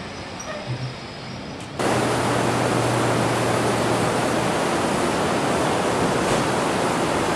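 BR Ivatt Class 2 2-6-0 steam locomotive standing at rest, with a loud, steady hiss of steam blowing off from its boiler that starts abruptly about two seconds in.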